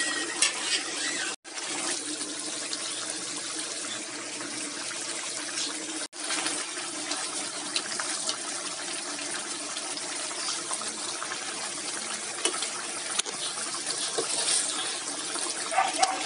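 Ginataang langka's coconut-milk sauce simmering and bubbling in the pot: a steady, busy bubbling hiss with small pops, broken by two very short drop-outs.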